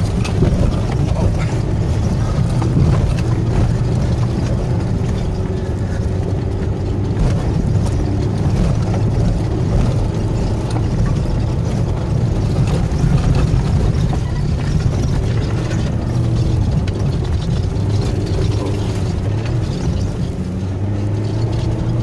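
Mitsubishi Pajero Sport's engine running hard, heard from inside the cabin, its pitch rising and falling as the driver speeds up and eases off. A steady rumble from the tyres on the dirt track runs underneath, with frequent short knocks and rattles from the body over the rough ground.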